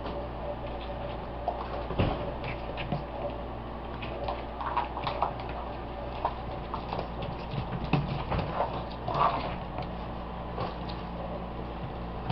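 Boxer puppies, five weeks old, play-wrestling in a wire pen: irregular scuffles, light taps and small thumps, loudest about two seconds in and again around eight to nine seconds, over a steady low hum.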